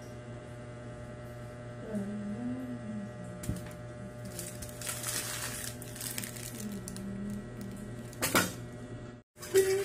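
Plastic seasoning sachets crinkling and being torn open by hand, loudest about halfway through and in a sharp crackle near the end, over a steady electrical hum and a faint tune.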